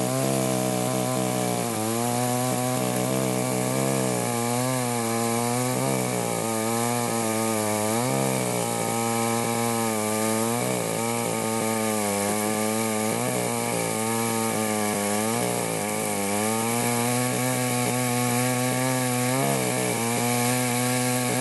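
Cheap Chinese Baus two-stroke chainsaw running at full throttle through logs, its engine note repeatedly sagging as the chain bites into the wood and climbing back between cuts.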